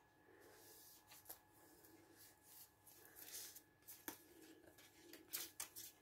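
Faint rustling of paper and crinkled foil as journal pages are handled and pressed flat by hand, with scattered light taps that come more often in the second half.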